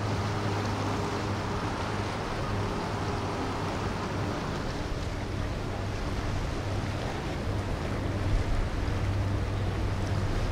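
Motorboat engine running with a steady low hum, over constant wind and water noise.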